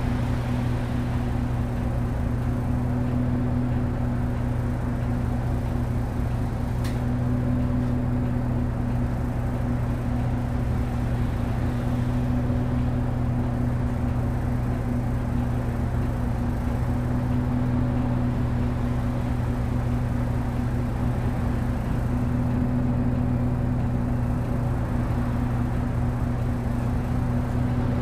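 Mitsubishi Fuso Aero Star (LKG-MP37FKF) city bus's diesel engine idling steadily, heard from inside the bus, with an unchanging low hum. A single faint click about seven seconds in.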